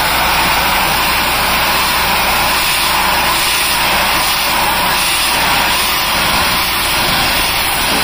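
Pressure washer running steadily, its wand spraying water through a wide white 40-degree tip onto a vinyl fence: an even hiss of spray over the low drone of the machine's motor.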